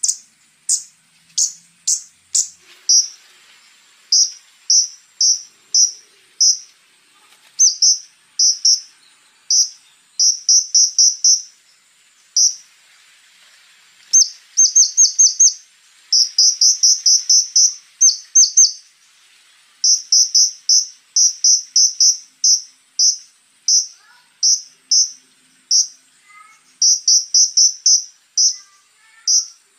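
Konin sunbird singing: sharp, high chips delivered in fast rattling runs of several notes with short breaks between, the rough rapid-fire 'tembakan' song prized by bird keepers. A faint steady high-pitched hiss runs beneath.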